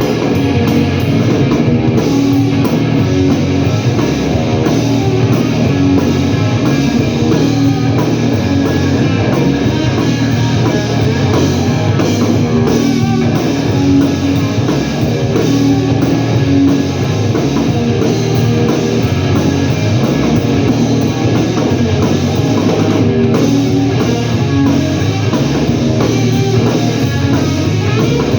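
A blues-rock band playing loudly: guitar over a drum kit, with no singing.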